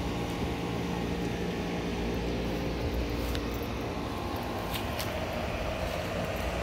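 Steady low mechanical hum, like a motor or engine running, with a few faint ticks.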